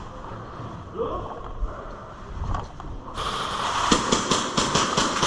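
Airsoft guns firing in a rapid string of sharp cracks, about five or six a second, starting about four seconds in. A hiss starts about a second before them.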